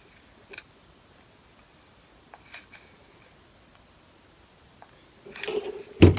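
Light clicks and rustles of artificial pine picks and craft pieces being handled, then near the end a rustle and a sharp knock as a hot glue gun is picked up off the table.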